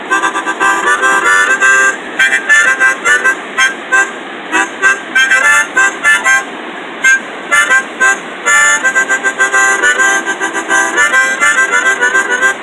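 Harmonica played in short rhythmic runs of chords and notes, with a few brief pauses, over the steady roar of river rapids.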